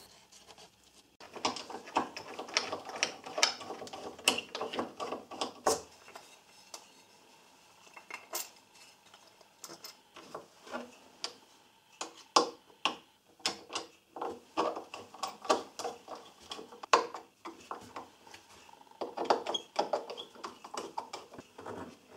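Scattered clicks, knocks and clatter of hand tools and wooden parts being handled on a workbench, including a screwdriver working in a wooden fence block and a metal bar clamp being fitted and tightened. The busiest clatter comes in the first few seconds, with another cluster near the end.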